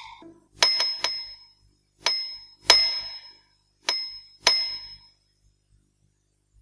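A small bell struck about seven times in uneven groups over some five seconds, each a bright high ring that dies away quickly.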